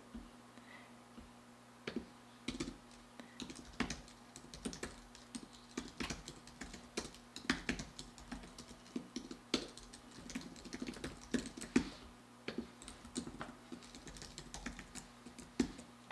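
Typing on a computer keyboard: irregular runs of quick key clicks, starting about two seconds in.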